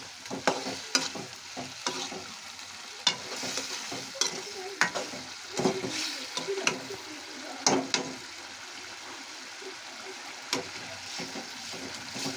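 Tomato gravy with boiled eggs sizzling in a metal pan on the stove while a spoon stirs it, knocking and scraping against the pan at irregular moments.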